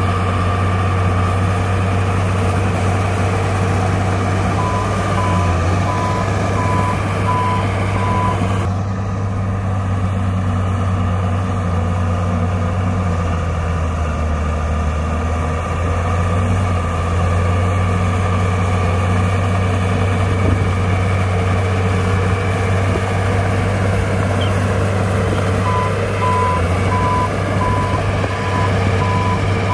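Heavy earthmoving machine's diesel engine running steadily under load, its pitch dropping briefly about halfway through. A reversing alarm sounds a regular series of beeps for a few seconds early on and starts again near the end as the machine backs up.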